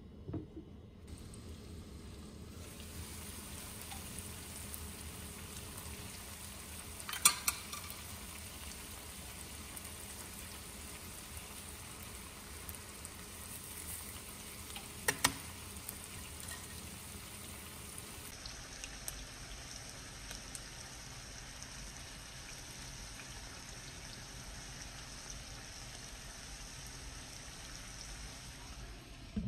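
Sliced onions frying in oil in a nonstick pan, a steady sizzle, broken by sharp knocks of a pan lid and utensils against the pan about a quarter of the way in and again about halfway through.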